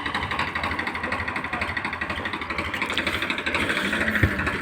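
Powertrac 439 tractor's diesel engine running with a steady, rapid chugging beat. There is one short thump near the end.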